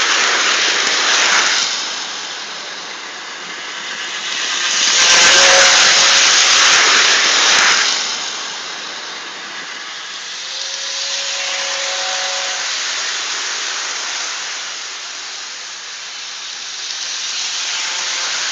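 Lionel toy train running around its track, a rushing hum of motor and wheels that swells and fades as it circles, loudest about five to eight seconds in.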